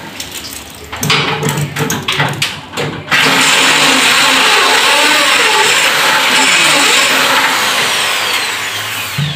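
Handheld power drill run in a few short stop-start bursts, then held on steadily for about six seconds, easing off near the end.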